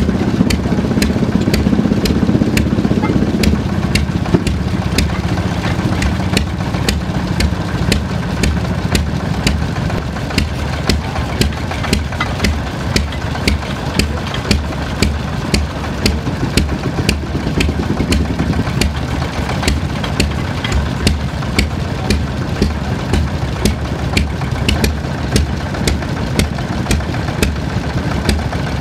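Small single-cylinder stationary engine running slowly with an even beat, about one and a half firing beats a second. A louder low hum overlaps it for the first few seconds.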